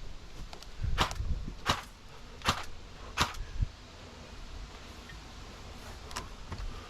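Airsoft gun firing single shots: four sharp pops about three-quarters of a second apart, with a few fainter pops near the end.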